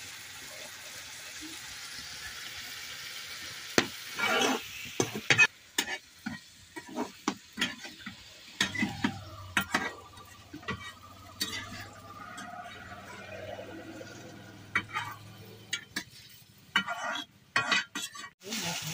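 Vegetables stirred and scraped in a small metal pan over a wood fire, frying with a sizzle: a steady hiss at first, then from about four seconds in, repeated sharp scrapes and clinks of a metal utensil against the pan.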